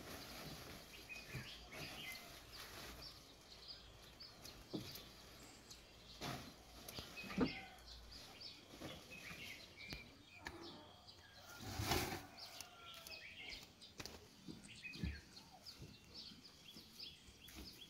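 Small birds chirping and twittering in short calls throughout, over the rustle of fresh greens and sheep feeding from a metal tray. A few sharp knocks stand out, the loudest about twelve seconds in.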